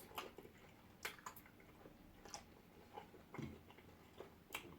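Faint eating sounds: a person chewing, with scattered small clicks.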